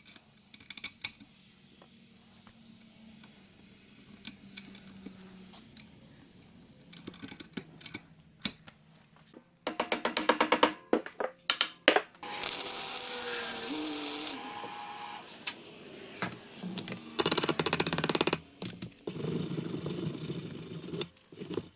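Metalworking shop sounds under light background music: scattered small metal clicks, then a quick run of taps as a rubber mallet knocks a foot peg into place, a power tool whirring for about two seconds, and more clattering near the end as a rod is worked in a bench vise.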